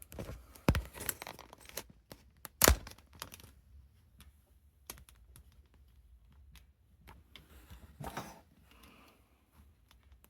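A series of handling clicks and knocks with some rustling, busiest in the first few seconds, with one loud sharp knock about two and a half seconds in, then only scattered clicks and a short rustle about eight seconds in.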